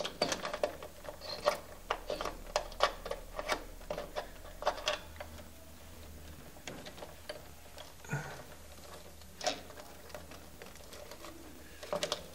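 Allen key working the screws of an electrical distribution terminal block, a quick run of small metallic clicks and ticks for the first few seconds, then scattered clicks, as the terminals are loosened to make room for a cable.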